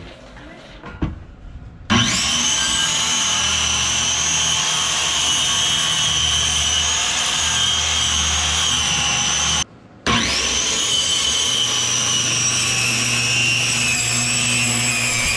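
Corded circular saw cutting out a boat's rotted wooden floor. It spins up with a rising whine about two seconds in and runs steadily. It stops briefly a little past the middle, then spins up again and keeps cutting.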